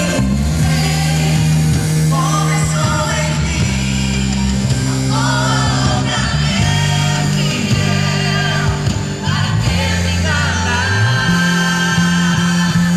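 Live gospel band music with singing over a steady bass line.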